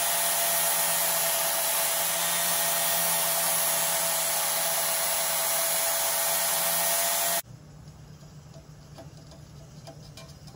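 Arc welding steel: a steady, loud hiss with a low buzz underneath, which cuts off suddenly about seven seconds in, leaving only faint ticks.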